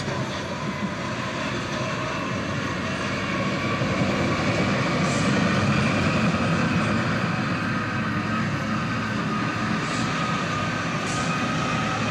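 Heavy diesel bottom-dump haul trucks driving past on an earth fill: steady engine noise with a faint whine above it, getting a little louder around the middle and easing off again.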